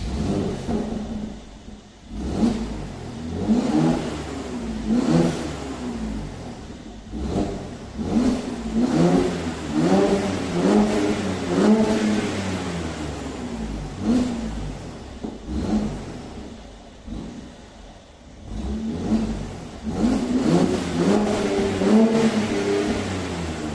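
Mercedes C43 AMG engine on its stock exhaust, revved up and down repeatedly in short blips, with a lull about two-thirds of the way through before another run of revs.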